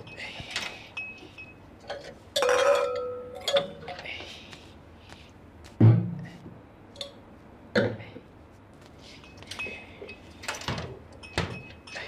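Glassware being handled: wine glasses clink and ring, one loud ringing clink about two and a half seconds in. A glass wine bottle and glasses are set down on a wooden table with two heavier knocks around the middle, among scattered lighter clicks.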